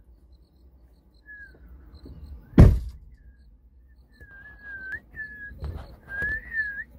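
A person whistling a wavering tune in short high notes, with one loud sharp thump about two and a half seconds in, over a low steady rumble.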